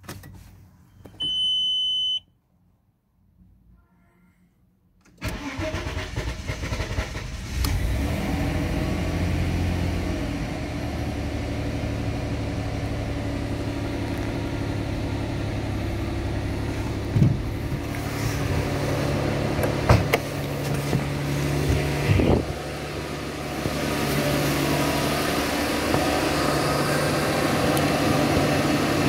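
A short electronic beep, then about five seconds in the Audi A6 C5's 2.4-litre V6 cranks and starts from cold. It settles into a steady cold idle, a little louder near the end.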